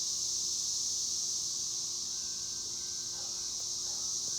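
Cicadas singing: a steady, high-pitched continuous buzz.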